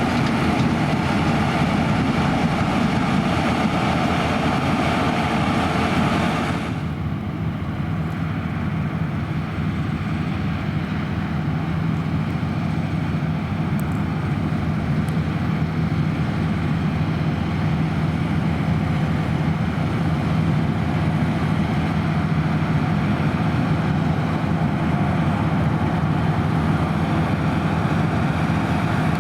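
Claas Lexion 580 Terra-Trac combine harvester running steadily as it combines barley. About a quarter of the way in, the sound changes suddenly: the higher hiss drops away, leaving a steady low drone.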